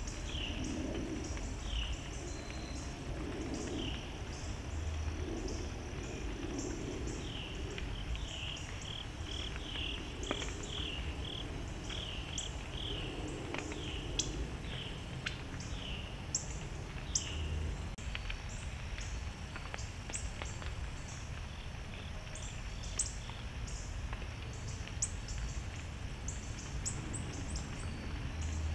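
Woodland ambience: repeated short falling bird chirps, thickest in the middle stretch, over a high, steady chorus of insects and a low, steady rumble.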